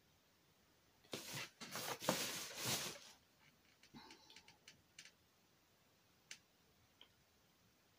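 Faint sounds of painting at a table. About a second in there are two seconds of close rustling and scraping, then scattered light ticks and taps as a fine paintbrush dabs at the acrylic canvas.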